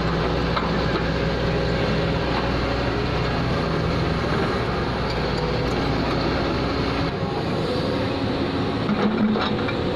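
Diesel engines of an excavator and trucks running steadily while soil is loaded. A deep engine hum drops away about seven seconds in, and there is a brief louder patch near the end.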